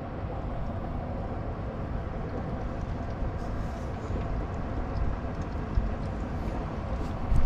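Steady low rumble of open-air noise on a small boat at sea, with no distinct knocks or calls.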